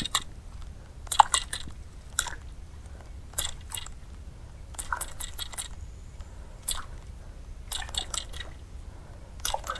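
Short crisp clicks and light splashes in groups of two to four, about every second, as a topwater stick bait is twitched back across the surface on a baitcasting rod and reel.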